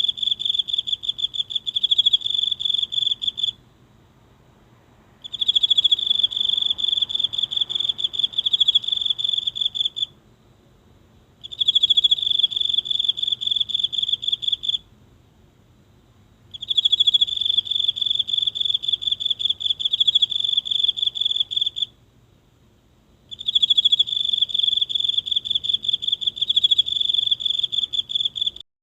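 A single insect singing close up: a high, steady-pitched, rapidly pulsing trill in five long bouts of about three to five seconds each, with short pauses between them.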